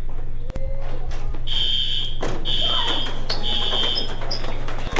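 Building fire alarm sounding a high electronic tone in repeated pulses, about one a second, starting about a second and a half in, over a steady low hum and background noise.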